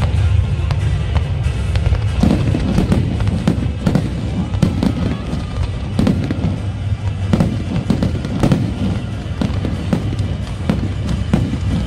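Fireworks display: irregular bangs and crackling from bursting aerial shells and spark effects, over a low rumble, with music underneath. The bangs come thicker about two seconds in.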